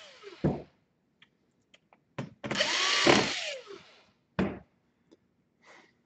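Cordless drill-driver working a screw in a laptop's bottom case: one run of about a second near the middle, its motor whine falling away as it stops. A few sharp clicks come before and after the run.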